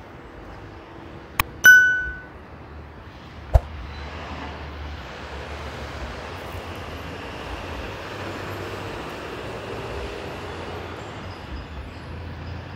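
A sharp click, then a single bright metallic ding that rings out briefly, about a second and a half in. Another click follows a couple of seconds later, over steady city-street traffic noise that swells a little as vehicles pass.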